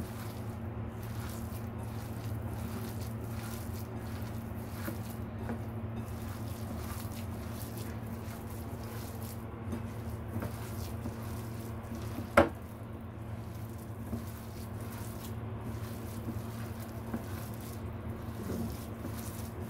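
A hand squeezing and turning wet minced pork-and-chive dumpling filling in a bowl, soft squelching, over a steady low hum. A single sharp click about twelve seconds in.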